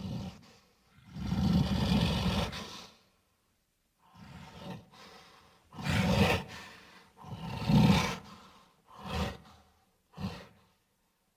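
Designed film-monster vocal effects: one long loud roar about a second in, then a run of shorter roars and grunting huffs with short silences between them.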